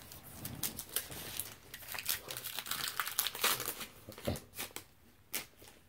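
Foil trading-card booster pack wrapper crinkling in irregular crackles as it is handled and torn open.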